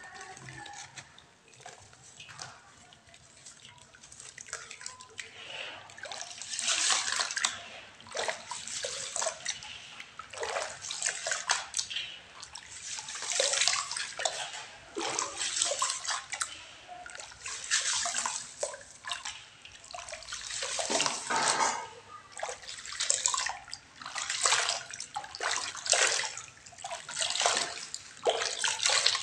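Water sloshing and splashing as cowrie shells and small clay toys are stirred about in it. It is quieter for the first few seconds, then a swish comes every second or two.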